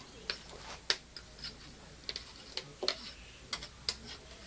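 A metal spatula clicks and scrapes against a plate as potato slices are pushed off it into a frying pan: about a dozen sharp, irregular clicks.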